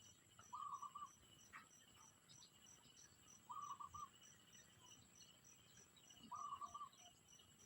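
Insects chirping in a steady high-pitched pulse, about three chirps a second. A louder, lower call made of a few quick pulses repeats three times, roughly every three seconds.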